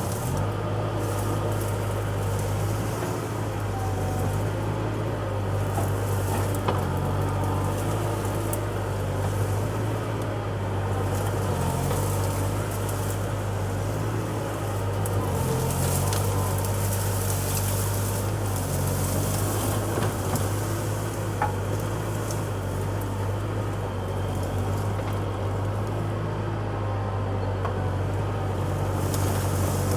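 Bobcat skid steer engine running steadily at working speed, with a low even hum and faint whines that rise and fall in pitch now and then.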